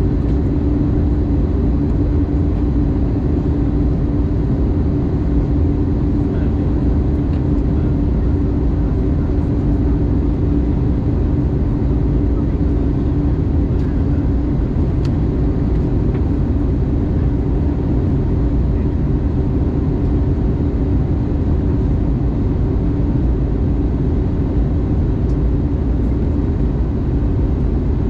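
Steady cabin noise of an Airbus A220 in flight, heard from a window seat beside its Pratt & Whitney PW1500G geared turbofan: a deep, even rush of airflow and engine with a steady droning hum running through it.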